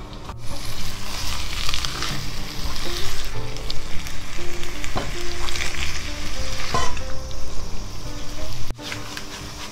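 Crispy fried catfish pieces in red curry paste sizzling in a wok while a wooden spatula stirs and scrapes them around the pan. The sizzle starts about half a second in and cuts off abruptly near the end.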